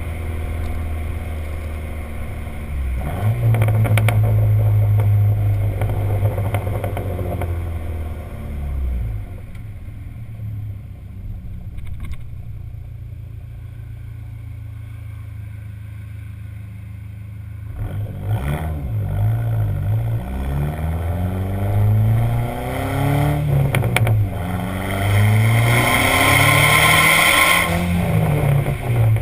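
Dodge Neon SRT-4's turbocharged 2.4-litre four-cylinder engine through a stock exhaust. It holds a raised rev for a few seconds, then drops to idle, and from about halfway on it is blipped repeatedly, rising and falling. Sharp crackles and pops come from the exhaust as the revs drop.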